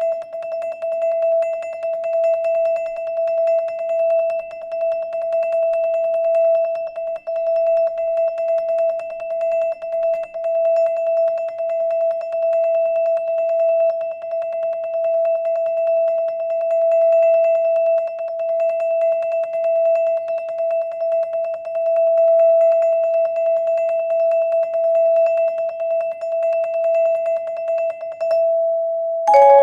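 Marimba played with mallets: one bar struck in a rapid, even stream of repeated strokes, holding a single steady pitch. Near the end the repetition stops and the player moves to a new group of notes.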